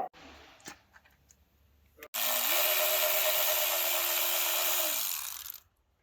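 A power tool starts about two seconds in, just after a click. It spins up quickly, runs at a steady speed for about three seconds, then winds down and stops.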